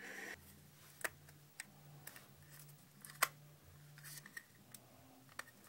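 Scattered small clicks and taps of a first-generation iPhone's aluminium back housing being handled and slid onto the phone, the loudest a little past halfway, over a faint steady low hum.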